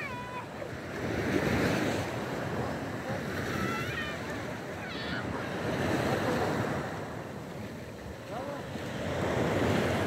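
Small sea waves washing on a shallow beach, the noise swelling and ebbing every few seconds, with wind on the microphone. Short distant voices rise over it a few times.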